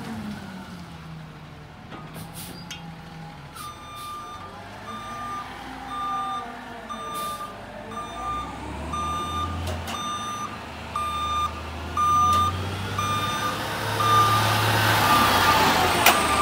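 Backup alarm of a CNG Peterbilt 520 garbage truck with a McNeilus ZR body beeping about twice a second as the truck reverses, starting a few seconds in. Under it the truck's natural-gas engine runs low and grows louder as the truck backs up close.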